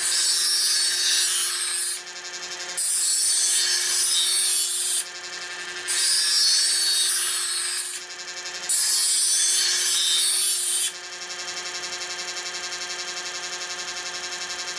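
Chef's Choice EdgeSelect 120 electric knife sharpener's motor running with a steady hum while an Argentine facón blade is pulled through its abrasive slots four times, each pass a loud grinding hiss of about two seconds. The last few seconds are the motor running alone with the blade lifted out.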